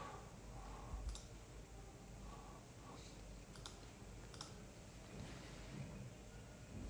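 A few faint clicks at a computer, a second or more apart, over quiet room tone.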